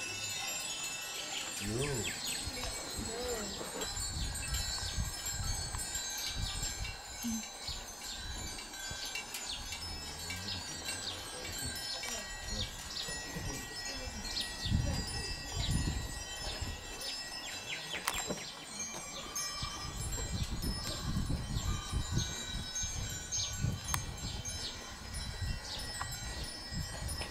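Many small metal bells on the stupas' spire finials tinkling in the breeze, a continuous scatter of short, high rings overlapping one another. Under them is a low rumble of wind noise that grows stronger in the second half.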